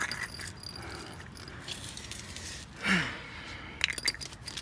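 Metal hand tools clinking and rattling as they are gathered up, a scatter of light clicks and jingles, with one brief sound falling in pitch about three seconds in.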